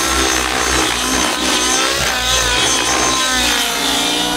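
O.S. 105 nitro engine with a Powerboost tuned pipe, driving a Velocity 90 RC helicopter in flight, running hard with its pitch bending up and down under changing load and dipping then recovering about three seconds in. The engine is set still a little rich and is pulling through the manoeuvres.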